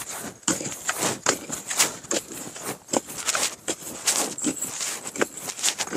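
A long-handled digging tool jabbing and scraping into dry, crumbly sandy soil, loose earth falling; an irregular run of scrapes and knocks, several a second.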